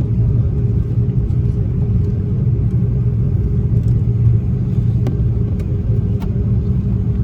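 Steady low rumble inside the cabin of an Airbus A330-300 on the ground with its engines at idle, with a few faint clicks about two-thirds of the way through.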